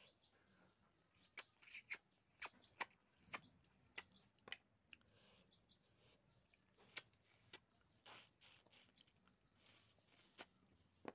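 A person eating rice and pork with her hand: faint, irregular wet clicks and smacks of chewing and of fingers working the food on the plate.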